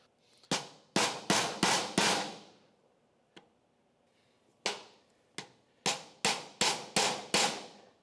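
Series of sharp hammer blows on a steel punch set against a motorcycle drive chain link, each with a brief metallic ring, driving the link apart to shorten the chain. About five quick blows, a pause, then about six more.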